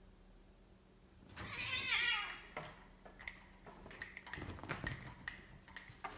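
Two house cats fighting: about a second in one lets out a loud yowl, falling in pitch, and then come a run of scuffling clicks and knocks as they spar against the couch and window blinds.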